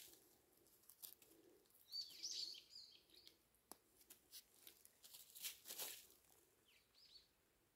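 Near silence with faint rustling and a few light clicks as young hardy kiwi shoots are handled and removed. A small bird chirps faintly about two seconds in and again near the end.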